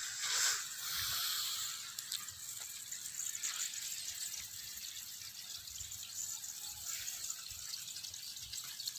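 Irrigation water running and trickling along the furrows of a field, a steady faint wash of noise, with a brief louder rustle about half a second in.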